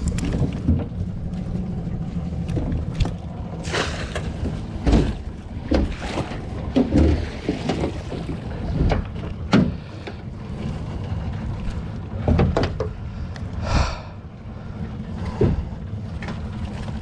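A wire-and-net crab pot being hauled aboard a small boat and handled: a string of irregular knocks, rattles and scrapes as the frame and mesh bang against the hull and gunwale, over a steady low hum.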